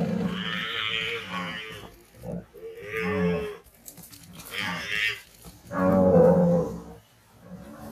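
Water buffalo calling several times in drawn-out, pitched calls with short gaps between them, the loudest about six seconds in. These are the calls of a herd confronting a leopard that is attacking their calf.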